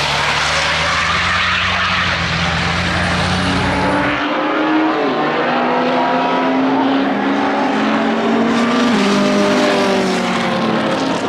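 Racing car engines at a circuit. A low, steady engine note with tyre and wind noise cuts off abruptly about four seconds in. A higher-pitched racing engine then revs up through the gears, its pitch climbing and dropping sharply twice at the upshifts.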